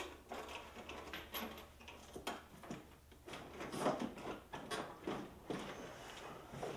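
Steel chain clinking and a heavy NiMH battery pack knocking and scraping in its compartment as it is heaved on to break it loose from where it is stuck. The sound is a run of irregular, quiet clunks and scrapes.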